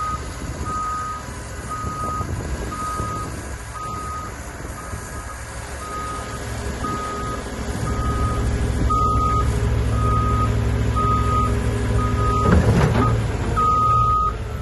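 Excavator's travel alarm beeping steadily, a little under two beeps a second, over its diesel engine working hard as the machine tracks out of the mud. The engine grows louder about halfway through, with a brief louder noise near the end.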